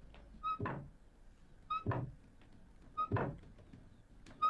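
A hand-worked wooden farm tool beating grain: a short wooden squeak followed by a thud, repeating at a steady rhythm about every 1.3 seconds.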